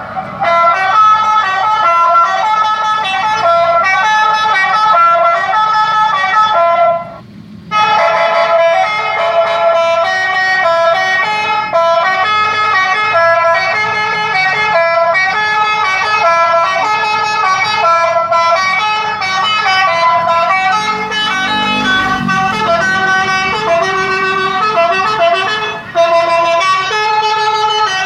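Electronic telolet horn, a melody module driving a horn speaker with no air compressor, playing a tune of quick stepped notes, loud, with one brief break about seven seconds in.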